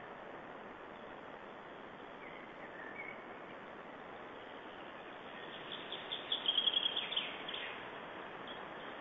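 A songbird sings a rapid, high trill of quick repeated notes about six seconds in, after a few faint short chirps, over a steady background hiss.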